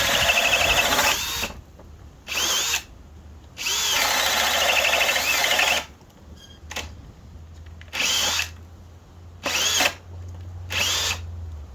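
Metabo HPT DV18DC 18V hammer drill boring with a 2-inch speed bore bit in stop-start bursts: two longer runs, then five short ones, each starting with a rising whine as the motor spins up. The bit is struggling to get through a knot in the wood.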